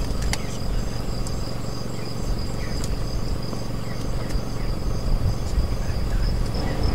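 Crickets chirping at night in a steady pulsing rhythm with a continuous high trill, over a low steady rumble.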